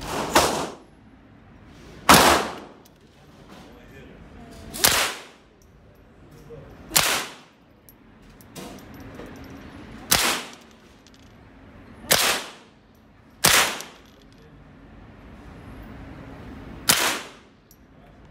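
Gunshots on an indoor range: about nine single shots, fired irregularly one to three seconds apart. Each is a sharp crack with a short echo off the range walls.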